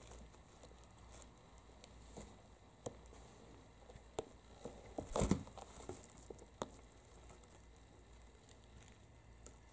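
Kittens play-fighting in a woven rope basket: faint scuffling and rustling of paws and claws on the rope, with scattered light ticks. A louder bump and scuffle comes a little past halfway.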